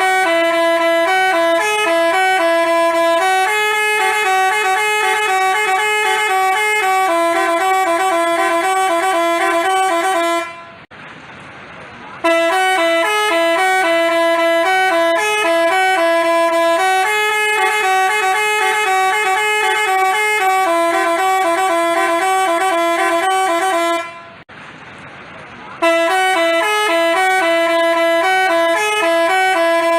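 Basuri telolet bus horn playing a tune of stepped, buzzy horn notes. The same tune sounds three times, with short breaks about 11 and 25 seconds in.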